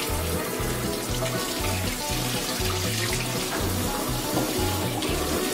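Kitchen faucet spray running over hands rinsing peeled garlic cloves. Background music with a steady, repeating bass line plays over it.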